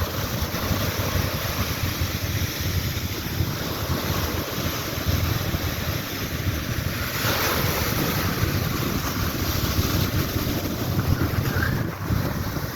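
Ocean surf washing onto a beach, with wind buffeting the microphone in a low rumble; a wave breaks a little louder about seven seconds in.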